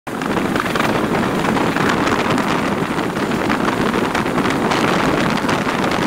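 Passenger train running along the track, heard from a coach doorway: a steady rumble of wheels on rail, with wind buffeting the microphone.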